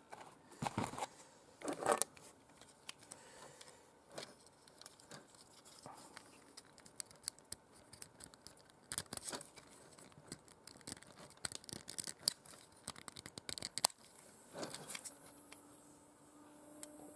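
Hands handling a small model aircraft toy: irregular clicks, taps and scraping of its parts as it is turned over and gripped. A faint steady hum begins near the end.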